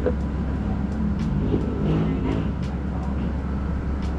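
City bus running along the road, heard from inside the cabin: a steady low engine and road rumble with a few brief clicks and rattles.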